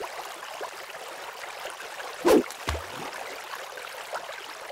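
Steady hiss of running, trickling water, with a single loud plop a little over two seconds in and a short low thump right after it.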